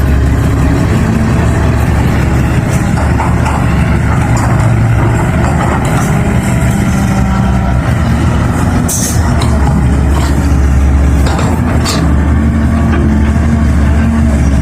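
Hydraulic excavator's diesel engine running steadily under working load, its pitch shifting a little, with sharp knocks about nine and twelve seconds in.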